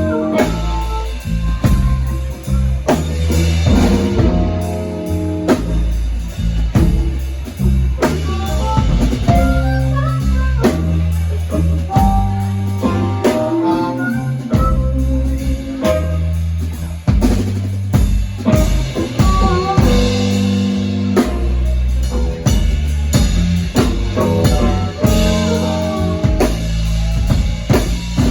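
A blues band playing an instrumental blues in C: a drum kit keeps a steady beat with bass drum and rimshots under a low bass line, while a guitar plays short lead phrases with bent notes.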